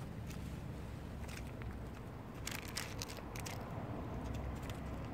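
A black cat licking and smacking at a lickable paste treat squeezed from a tube, heard as a scatter of small wet clicks, thickest a few seconds in, over a steady low rumble.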